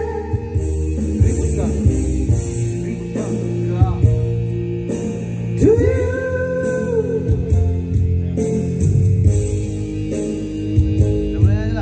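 A man singing into a handheld microphone over amplified backing music with a steady bass line, his voice coming in sung phrases, one held long about six seconds in.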